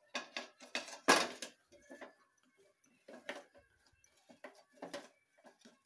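A metal spoon or spatula scraping and stirring in a kadai while a masala cooks: a run of short, uneven scrapes, the loudest about a second in.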